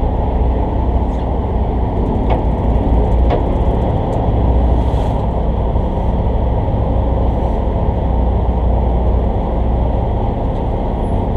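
Steady low rumble of a charter fishing boat's engine running, with a couple of faint clicks a few seconds in.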